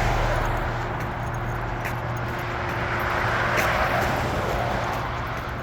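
Road traffic passing: cars going by on a multi-lane road, the tyre and engine noise swelling at the start and again about three and a half seconds in, over a steady low hum.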